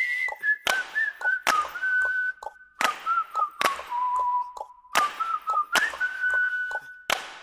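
A whistled tune that hops between a few notes, over sharp percussive hits about once a second: the intro jingle of a logo title card.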